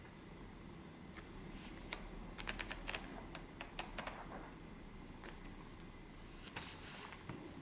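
Light, irregular tapping clicks on a hard object, mostly single taps with a quick run of about six just over two seconds in.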